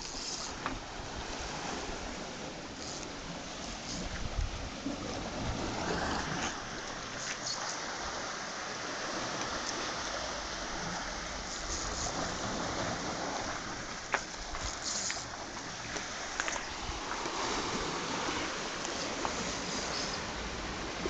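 Steady wash of ocean surf and wind, with a few faint clicks.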